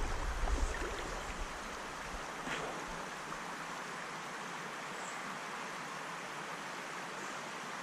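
River current rushing steadily over a shallow riffle, an even watery hiss.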